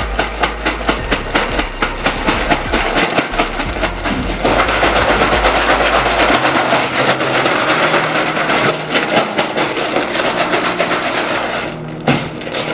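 Ice cubes and rock salt rattling and clattering inside a plastic zip-lock freezer bag that is being shaken hard by hand, in quick repeated shakes, to freeze the cream in the smaller bag inside into ice cream.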